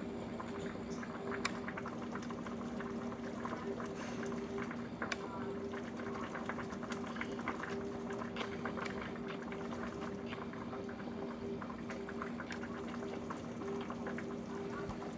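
A pot of ground beef and vegetables in water simmering, with irregular small bubbling pops over a steady low hum.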